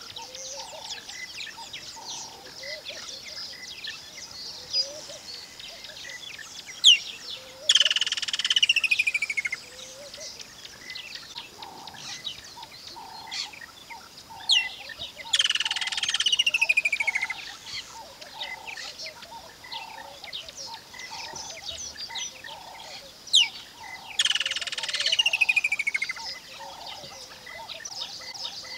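Woodland kingfisher calling three times, each call a sharp high note followed by a long trill that slides down in pitch, over a background chorus of small chirps and evenly repeated lower notes.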